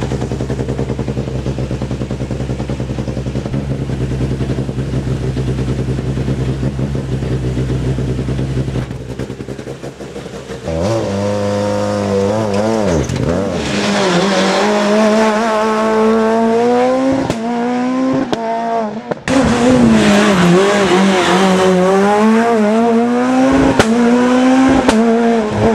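Peugeot 207 S2000 rally car's four-cylinder engine idling steadily, then revved and pulling away hard about eleven seconds in. Its pitch climbs and drops back several times as it goes up through the gears.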